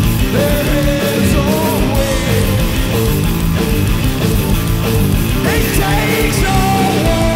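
Live heavy rock from a guitar-and-drums duo: loud distorted electric guitar riffing over a drum kit with crashing cymbals, with some notes bending in pitch.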